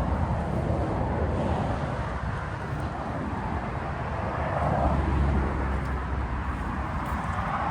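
Steady outdoor rumble of road traffic, swelling for a moment about five seconds in as a vehicle seems to pass.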